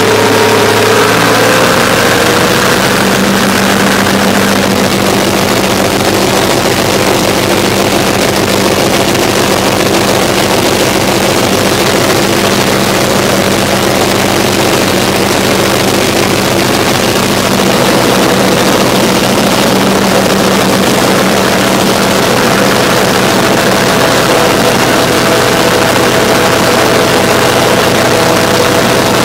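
Štore 404 Super tractor's diesel engine running steadily under way, heard from inside the cab. Its note shifts up slightly in the first couple of seconds, then holds.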